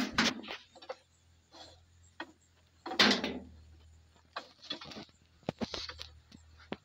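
Wooden beehive top-bar strips being handled: scattered knocks and clicks of wood on wood, with short scraping rubs as beeswax is applied along a strip's edge, the loudest scrape about three seconds in.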